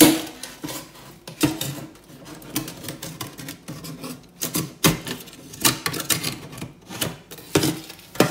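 Fillet knife and bicolor razor clam shell scraping and clicking against each other and the stainless steel sink as the meat is cut from the shell: an irregular string of sharp clicks and rasping scrapes.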